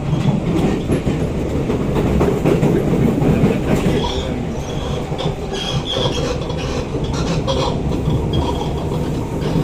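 Siemens C651 metro train running, heard from inside the carriage: a steady rumble with clicking and clattering from the wheels and bogies. Short high squeals come in from about four seconds in.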